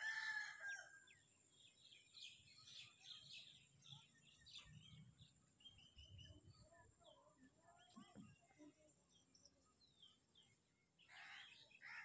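A rooster crows once right at the start, then small birds give faint, scattered chirps.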